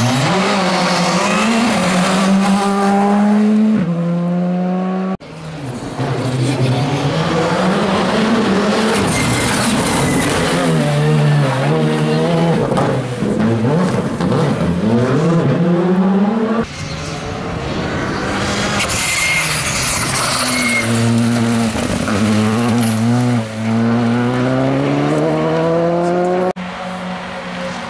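Rally cars, Škoda Fabias among them, passing one after another: engines revving hard, the pitch climbing and dropping quickly through gear changes and lifts, with tyres squealing in the bends. The sound cuts suddenly from one car to the next.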